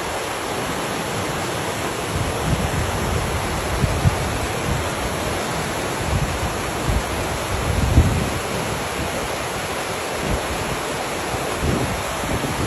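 Whitewater rapids rushing steadily, with wind buffeting the microphone in low thumps, the strongest about eight seconds in.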